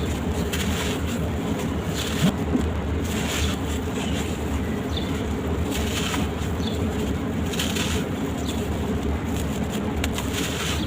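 Gritty sand-cement shapes crumbling, a crunch about every second, over a steady low hum.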